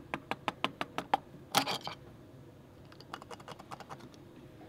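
Sharp, rapid clicks and taps of a metal tool picking and prying at the old Tufnol log bearing inside the stern tube, breaking pieces out. There is a louder clatter about a second and a half in, then fainter, quicker clicking.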